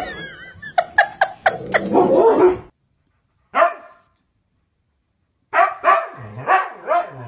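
Short sharp dog barks in the first couple of seconds, then after a break a Siberian husky gives one bark and, near the end, a quick run of barks with a howling, wavering pitch.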